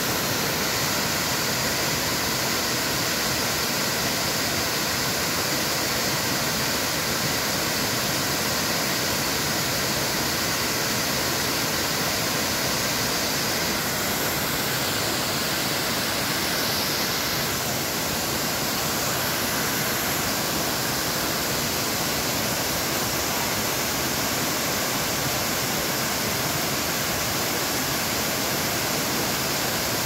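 Waterfall rushing steadily, its water cascading down a rock face into a pool.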